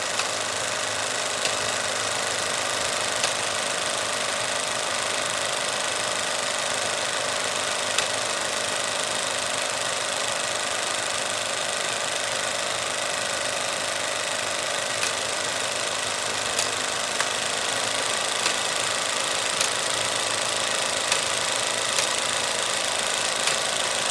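Cinema film projector running: a steady mechanical whirring rattle with a hum under it, and scattered sharper clicks every second or so.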